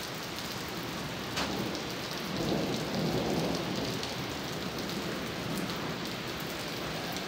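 Heavy rain pouring steadily, with a single sharp tap about one and a half seconds in and a low rumble swelling for a second or so near the middle.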